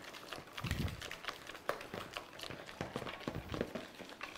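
Wire whisk beating a thickened cream and ricotta mixture in a plastic bowl by hand: a fast, uneven run of light ticks and taps as the wires strike the bowl, with a soft low thump under a second in. The mixture is nearly set and is getting its last few strokes.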